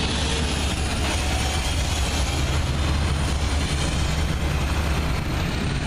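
CSX double-stack container train rolling past, a steady low rumble under an even noise of wheels on rail.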